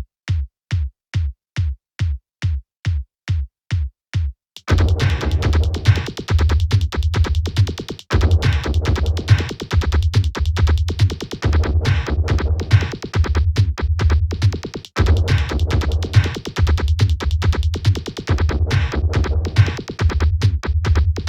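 Roland R-8 drum machine playing Kawai R-50 drum samples: a lone low kick-type drum beats about three times a second, then about four and a half seconds in a full beat comes in with a heavy low bass and busy cymbals and percussion, dropping out briefly twice.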